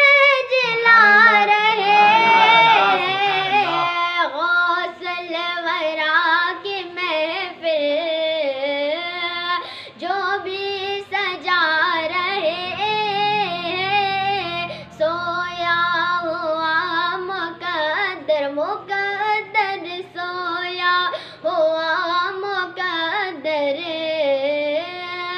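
A boy singing an Urdu devotional manqabat solo, a high voice with long, wavering held notes broken by short breaths.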